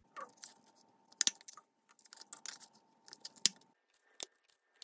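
Plastic circle craft punch snapping as it cuts circles out of a thin adhesive magnet strip: two sharp clacks about two seconds apart, among softer clicks and handling of the strip.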